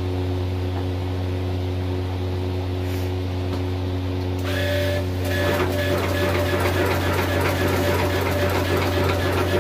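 Automatic agarbatti-making machine with its motor running, a steady low hum. About five seconds in the stick-extruding mechanism gets going and a rapid, busy mechanical clatter joins the hum, slightly louder.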